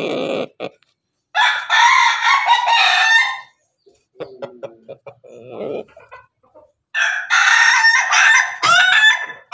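Rooster crowing twice, about a second in and again about seven seconds in, with quieter chicken clucking between the crows.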